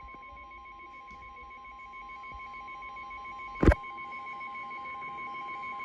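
Midland WR300 weather radio sounding a NOAA Weather Radio warning alert: a long steady tone with a fast pulsing beep over it, slowly getting louder. A single sharp knock about three and a half seconds in is the loudest sound.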